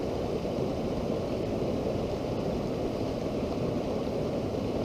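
Steady low rushing noise of the river current flowing over shallows, mixed with wind on the microphone.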